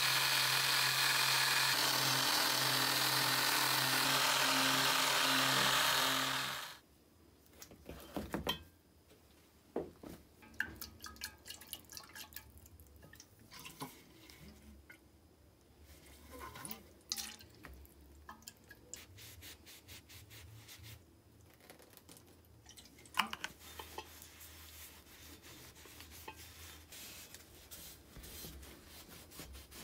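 Electric detail sander running steadily with a motor hum, cutting off suddenly about seven seconds in. After it, soft rubbing and handling noises with a few light knocks as a cloth wetted from a can is wiped over the cast-metal grater body.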